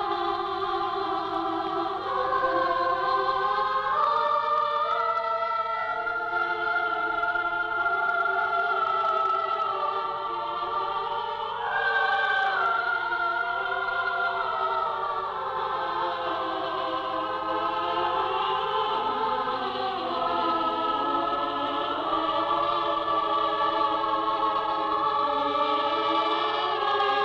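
Film score of a choir singing long, slowly shifting held chords.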